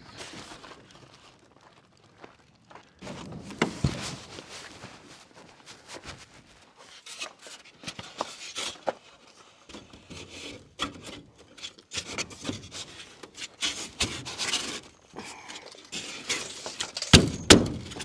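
Expanded-polystyrene foam ICF blocks rubbing and scraping against one another as they are handled and pressed into place, with scattered sharp knocks from hands banging them down to seat them; the loudest knocks come near the end.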